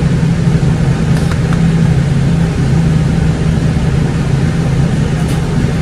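Steady low hum and rumble of a car's engine, heard from inside the cabin.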